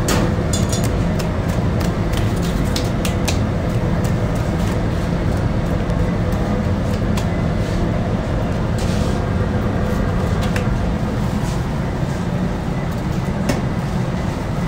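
Steady low rumble of bakery machinery, with scattered light taps and clicks, several in the first few seconds.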